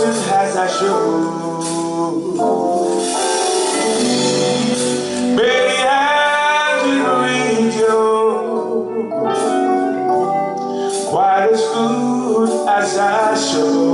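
A live band plays a slow ballad on keyboards, with a voice singing over it.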